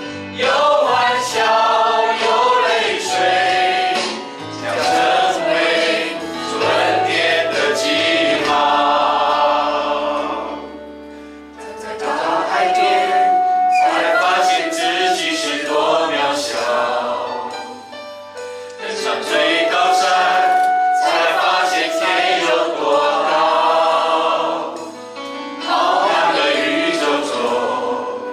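A small worship team of mixed men's and women's voices singing a slow Mandarin Christian worship song together into microphones, in long phrases with short breaths between them.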